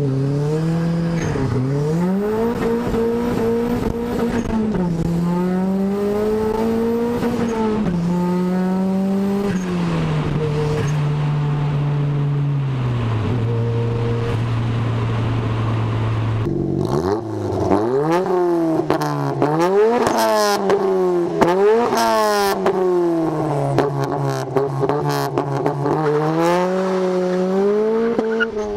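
1994 Mazda MX-5's turbocharged 1.8-litre four-cylinder, heard inside the cabin accelerating hard up through the gears, each rise in revs cut off by a gearchange, then running steadily at cruise. About 17 seconds in it is heard from outside: the engine is blipped and revved hard through a straight-through exhaust, with several loud sharp cracks, as the car pulls away.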